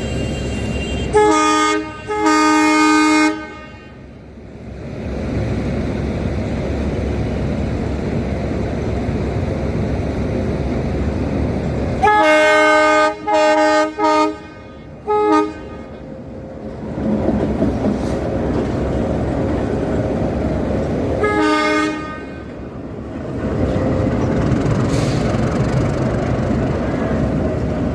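WDS6AD diesel shunting locomotive's horn blowing loud blasts: two near the start (the second longer), a run of four short toots about halfway through, and one short toot later. The locomotive's diesel engine rumbles steadily between the blasts.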